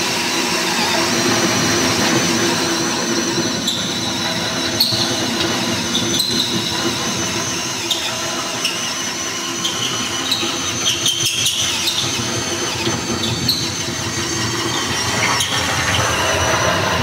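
Cordless drill running steadily under load as its bit cuts through the steel wall of a pellet smoker's cooking chamber, with a high whine throughout.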